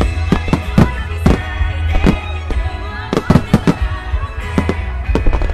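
Star-mine firework barrage: many shells bursting in quick succession, with irregular sharp bangs about three a second over a continuous low rumble. Music plays along with the bursts.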